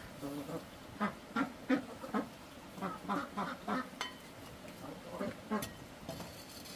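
Ducks quacking in a run of short, quick calls, busiest from about a second in to the middle, with a few more calls later.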